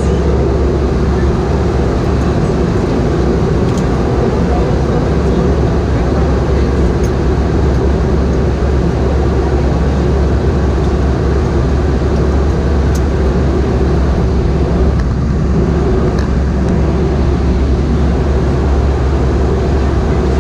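Steady cabin drone of a Boeing 717 in flight, the noise of its two rear-mounted Rolls-Royce BR715 turbofans and the rushing airflow, heard inside the passenger cabin with a strong low hum.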